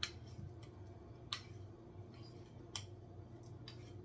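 Four light, sharp clicks of kitchen utensils against dishware, spaced about a second apart, over a low steady hum.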